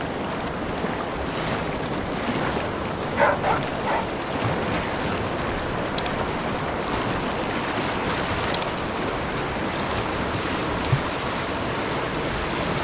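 Big Thompson River rushing steadily over rocks through rapids. A few short chirps come about three seconds in, and there are brief clicks later on.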